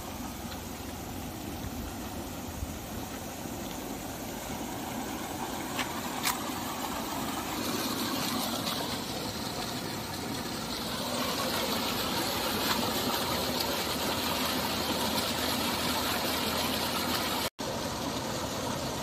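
Steady rush of turbulent canal water churning past a concrete bank, a little louder from about halfway through.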